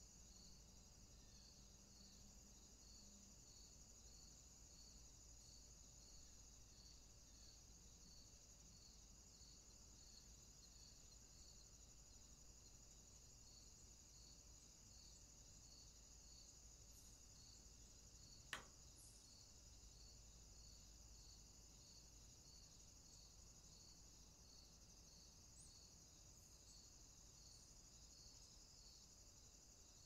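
Faint insect chorus: a steady high trill with a regular chirp pulsing through it a little under twice a second. A single sharp click a little past halfway is the loudest moment.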